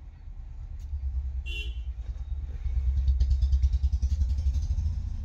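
A motor vehicle going by, its low engine rumble swelling and then fading, with a brief horn toot about one and a half seconds in.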